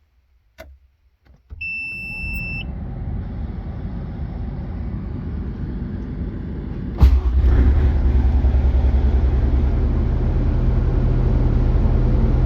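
Bobcat S185 skid-steer powering up: a few clicks, a short electronic beep with a rising whir behind it, then about seven seconds in its Kubota diesel starts with a sharp bang and settles into a steady low idle.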